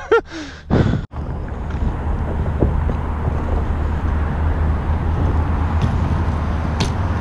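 Steady low rumble of wind on an action camera's microphone, with a few faint clicks near the end. It follows a brief voice and a knock in the first second that cut off abruptly.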